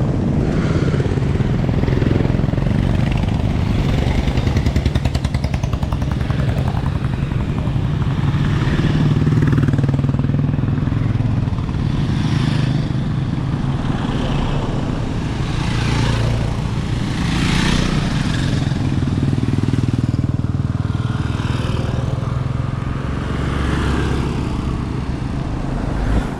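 A motor vehicle's engine running steadily, a loud, continuous low rumble.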